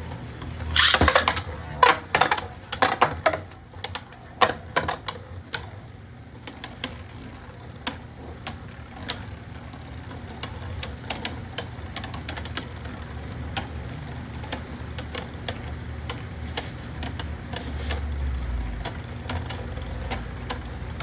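Two Beyblade Burst spinning tops, Zeal Needhog and Lightning Pandora, whirring in a plastic battle stadium and clacking against each other and the stadium walls. A flurry of sharp clicks in the first few seconds thins to scattered clicks over a steady spinning hum.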